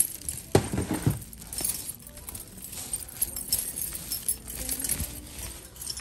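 Footsteps on a hard tile floor with the jingling, clinking and rustling of a carried bag and its contents, with a louder bump of handling noise just under a second in.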